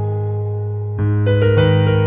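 Background music: sustained keyboard chords over a held low bass note, with a new chord struck about a second in.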